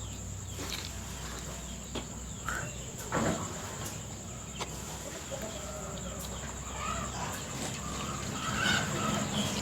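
Short animal calls, more frequent in the second half, with scattered sharp clicks over a steady high-pitched whine.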